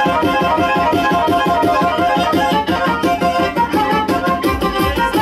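Fast Black Sea horon dance music, a high quick-running melody over an even pulse. A heavy bass beat comes in near the end.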